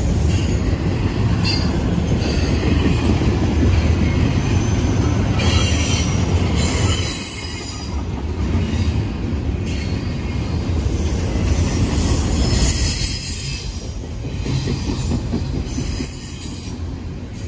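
Double-stack intermodal well cars rolling past: a steady rumble of steel wheels on rail, with high-pitched wheel squeal coming and going. The rumble eases slightly about halfway through.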